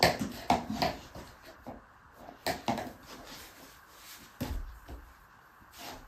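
Plush house slippers being handled and set down, with steps on a wooden floor: a scatter of short soft knocks and thuds, a cluster in the first second, then more about two and a half and four and a half seconds in.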